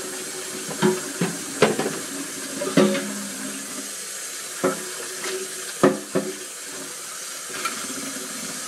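Kitchen tap running steadily into the sink while dishes are washed by hand, with several sharp clinks of dishes knocking together between about one and six seconds in.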